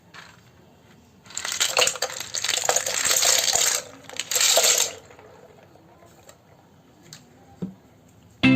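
Many small hard plastic keyboard keycaps clattering and rattling together, shaken in a container: a dense rattle of about two and a half seconds, then a shorter one.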